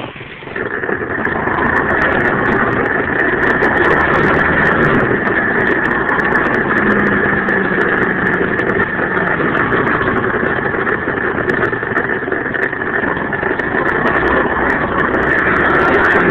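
107cc four-stroke pit bike engine running steadily while riding, with a steady high whine over the engine note. It dips briefly at the start, then picks up, and the pitch rises a little near the end.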